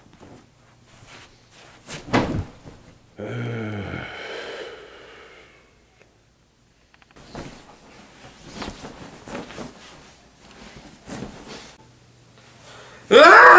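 Sparse knocks and rustling, with a sharp thump about two seconds in and a short low pitched sound just after it. Near the end comes a loud pitched sound of several wavering tones.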